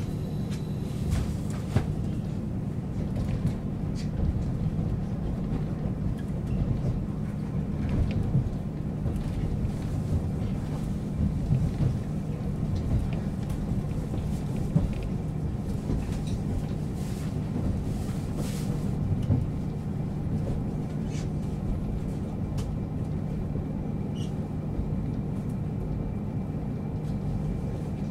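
JR Hokkaido KiHa 40 series diesel railcar idling while stopped: a steady low engine hum, with a few faint clicks and knocks.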